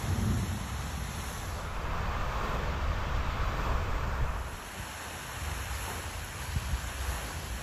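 Wind buffeting the microphone as a heavy low rumble, over a steady hiss of rain falling on pond water.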